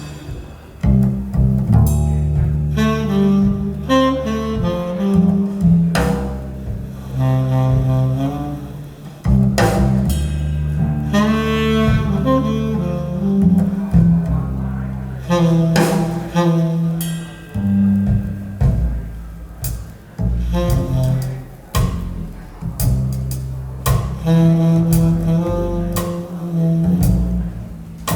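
Recorded jazz-style music with a prominent double bass, plucked and bowed, under melodic instruments, played back over Sonus Faber AIDA 2 SE floor-standing loudspeakers in a listening demo.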